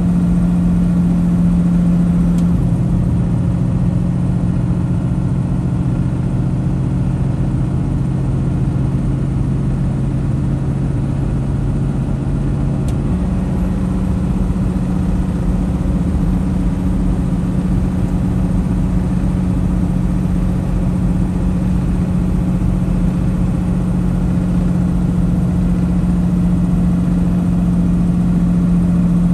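Semi truck's engine and road noise heard inside the cab while cruising on the highway: a steady low drone whose pitch drops a few seconds in and climbs back about halfway through.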